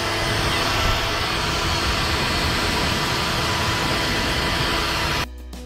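Craftsman handheld leaf blower running steadily at close range, blowing sawdust off a person. It cuts off sharply near the end as guitar music comes in.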